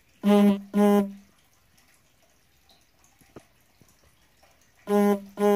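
Two pairs of short, loud, steady-pitched beeps, one pair about a quarter second in and another near the end.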